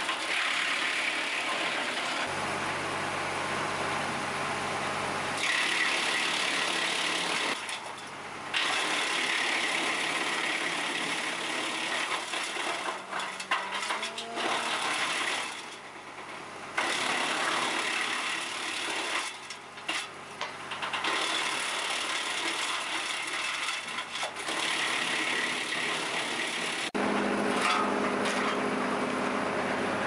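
Tractor-driven BX42S wood chipper running and chipping branches fed in by hand, the chipping noise swelling as each load is pulled through and dipping briefly between loads, about three times. Near the end the sound changes abruptly to a steadier, lower machine hum.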